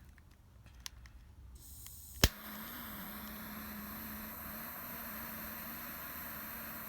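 Small butane torch lighting and burning: gas starts to hiss about a second and a half in, a sharp click of the igniter lights it, and the flame then burns with a steady hiss and a low hum. The torch is heating a lens bayonet screw to soften the thread-locking glue.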